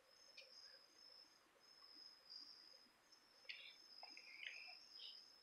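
Near silence with a faint, steady high-pitched insect trill, like crickets, and a few short faint chirps in the second half.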